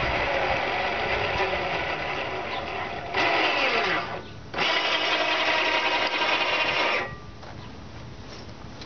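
Electric winch motor running in two bursts, about four seconds and then about two and a half seconds, each starting and stopping sharply, while it hauls the boat on its cable.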